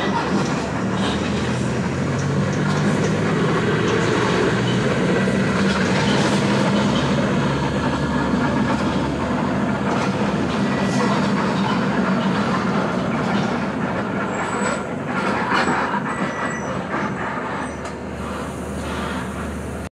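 Steady rumble of a moving vehicle with a continuous clatter of rattles, as heard from inside it while it drives along a street.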